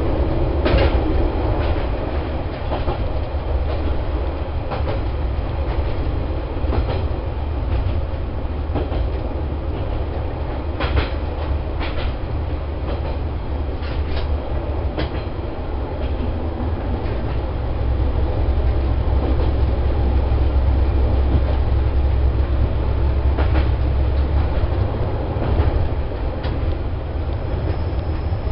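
Diesel railcar running on jointed track, heard from inside the cab: a steady low rumble of engine and wheels, with wheel clicks over rail joints about every two seconds at first and in quick pairs around the middle.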